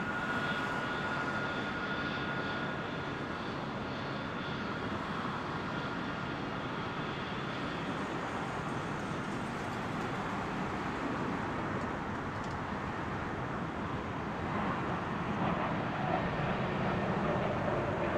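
Boeing C-17 Globemaster III's four Pratt & Whitney F117 turbofan engines running at low power as the jet rolls slowly along the runway after landing: a steady rush with a faint high whine that fades early, growing louder in the last few seconds as the aircraft comes closer.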